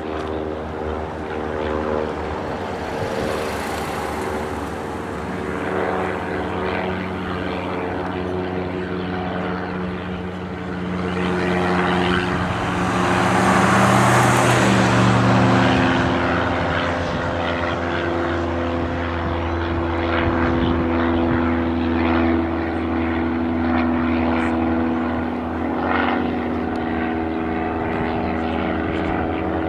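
Propeller airplane engines running steadily, several at once, with one aircraft growing louder and passing close roughly halfway through.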